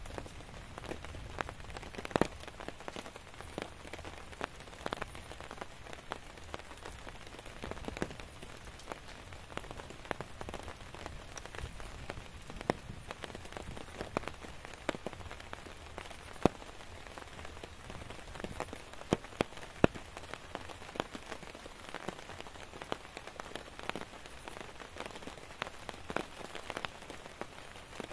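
Steady rain falling on a tent: an even hiss with many loud, irregular taps of single drops striking close by.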